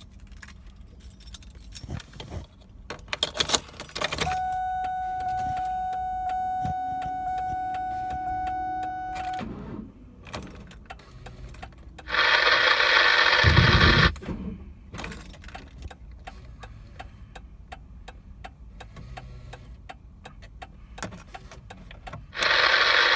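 Ignition keys jingling, then a steady warning tone for about five seconds. After that the 2003 Mustang GT's starter cranks the engine twice, each time for about two seconds, the second starting near the end, without the engine catching. This is a no-start with the anti-theft light flashing.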